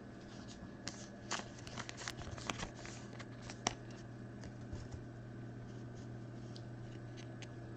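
Trading cards being handled and slid against each other, faint clicks and rustles, mostly in the first half, over a steady low hum.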